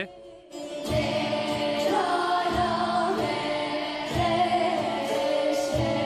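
Children's choir singing a Kurdish song with soprano recorders, over a steady low drone and a low beat about twice a second; the music comes in about half a second in.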